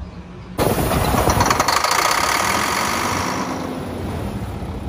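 A Volvo semi-truck's diesel engine being cranked while starting fluid is sprayed into its air intake: a rapid, rhythmic, rough churning with a hiss over it, starting abruptly about half a second in. The truck has a no-start fault that new fuel pumps, sensors, valves and filters have not cured.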